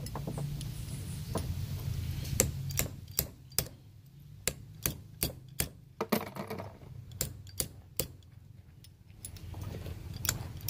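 Crane truck swing-gear assembly turned by hand, giving a run of sharp metallic clicks about two or three a second. A low hum sits underneath, strongest in the first few seconds and again near the end.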